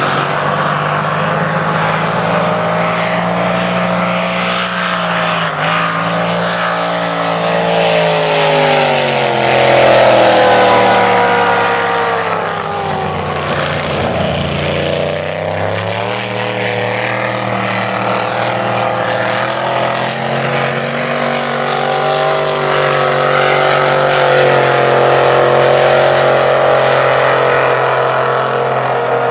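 Blown (supercharged) engines of unlimited displacement-class racing powerboats running hard, a loud, continuous engine note. The pitch sags about halfway through and then climbs again.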